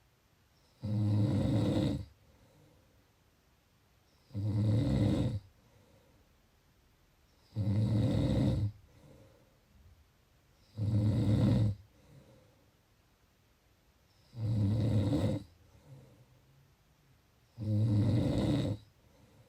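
Steady, regular snoring: six snores, each about a second long, coming one every three seconds or so, with quiet breathing in between.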